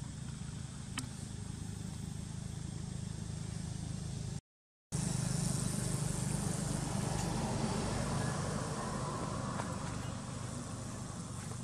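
Steady low outdoor background rumble with no distinct event. It cuts out completely for about half a second a little over four seconds in, then comes back slightly louder.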